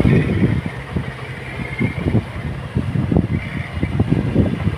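Heavy construction machine running, a low rumble broken by many irregular low thumps, with a faint high whine above it.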